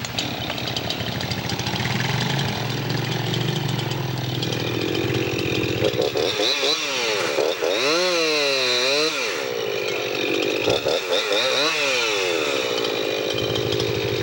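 Chainsaw running and cutting wood, its engine pitch dipping and rising several times as the chain bogs under load and frees up.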